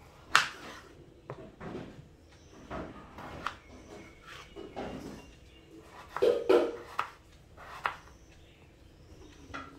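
Kitchen knife slicing a peeled raw potato on a wooden cutting board: about a dozen irregularly spaced chops, each stroke ending in a knock of the blade on the board, loudest just after the start and in a cluster about six seconds in.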